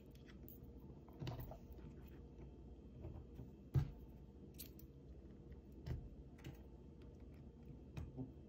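Scattered faint clicks and taps as a flexible jumper wire is handled and its pin pushed into a solderless breadboard, the sharpest click about four seconds in.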